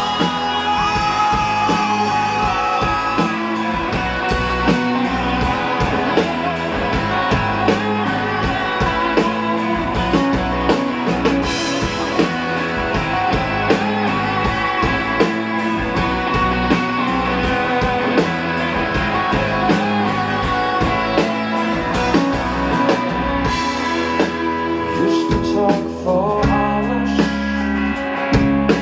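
Rock band playing live: electric guitar over a steady drum beat and bass, with some singing.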